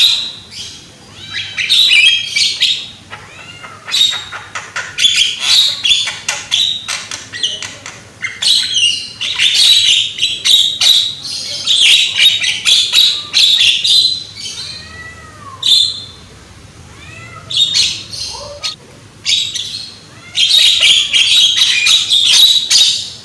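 Young Javan myna singing loudly in bouts of rapid, harsh chattering notes mixed with short gliding whistles, broken by brief pauses.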